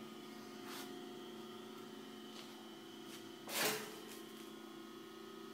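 Hobart L-800 80-quart mixer's three-phase motor running with a steady hum. About three and a half seconds in there is a short, loud rush of noise.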